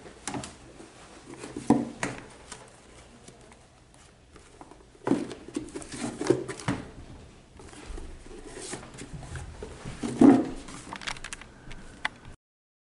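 A small wooden chest being handled: its lid opened and papers rummaged inside, with rustling and several wooden knocks and clunks, the loudest about ten seconds in.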